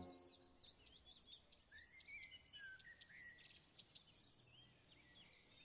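Songbird singing: phrases of sharp, high, down-slurred notes repeated in quick series and short rapid trills, with a fainter, lower second bird calling beneath.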